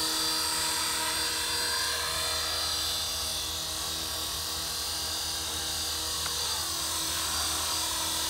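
Electric 450-size RC scale helicopter with an Airwolf body hovering and flying low: a steady whine from the motor and the whir of the spinning rotors.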